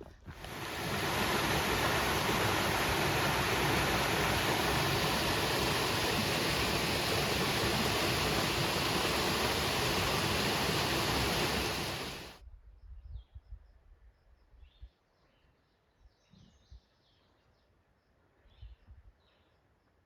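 A loud, steady rushing noise that cuts off abruptly about twelve seconds in. Then it goes quiet, with faint scattered chirps.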